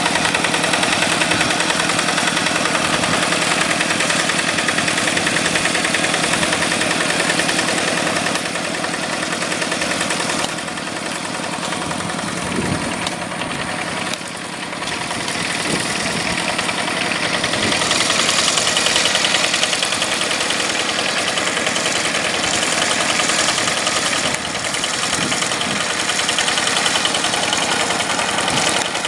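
Yanmar diesel engine of a rice-paddy tractor running steadily with a fast, even firing beat. It eases off a little about ten seconds in and picks back up a few seconds later, as the load in the field changes.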